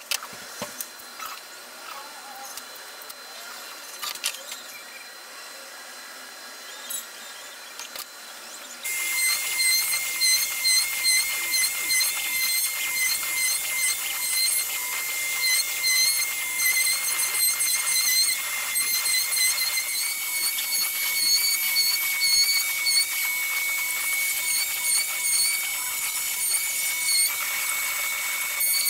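DeWalt trim router spindle on a CNC machine V-carving a pine board: a loud, steady high-pitched whine with small wobbles as the bit cuts. It starts abruptly about nine seconds in and steps slightly higher around twenty seconds; before it, only faint clicks and knocks.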